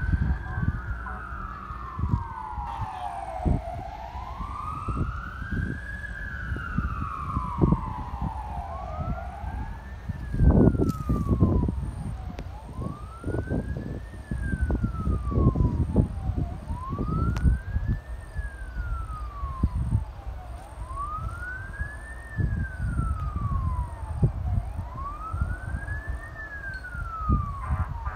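Fire truck sirens on wail, each sweep rising and falling about every four seconds. Two sirens overlap at first, and a single siren carries on from about a third of the way in. Irregular low rumbling gusts run underneath.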